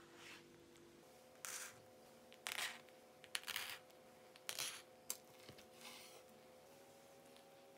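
Crisp pan-toasted tortilla wedges crackling and rustling in several short bursts as fingers press and shift them on a wooden board, with a sharp click or two, over a faint steady hum.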